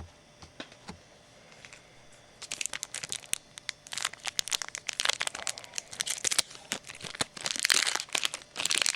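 A foil trading-card pack being torn open and its wrapper crinkled: a dense, rapid crackle that starts about two and a half seconds in, after a quiet start.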